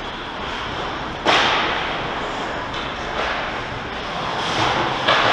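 Ice hockey game sounds in an echoing rink: a sudden loud crack or scrape about a second in that fades slowly, another near the end, over steady skating and rink noise.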